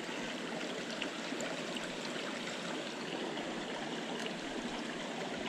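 Small mountain creek running: a steady, even rush of flowing water.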